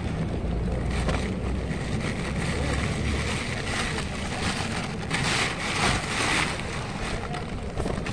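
A large flock of feral pigeons flapping and fluttering their wings as they crowd over scattered grain, in repeated flurries that are busiest a little past the middle, over a low rumble of wind on the microphone.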